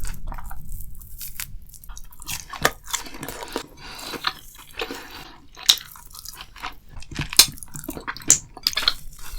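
Close-miked chewing of a chewy food: irregular mouth clicks and smacks, with a few louder sharp ones spread through.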